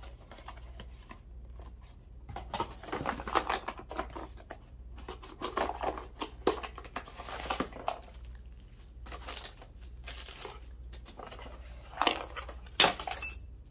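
A small cardboard Kwikset lock box being handled and opened, its flaps and packaging rustling and crinkling in irregular bursts. Near the end comes one sharp metallic clink from the lock hardware inside.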